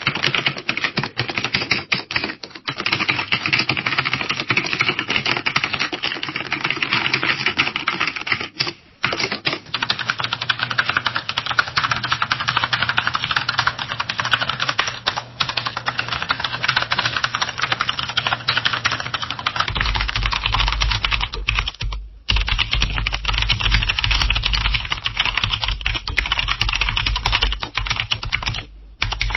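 Fast, continuous typing on a computer keyboard: dense key clicks with a few brief pauses. Over the last third a steady low hum sits under the clicking.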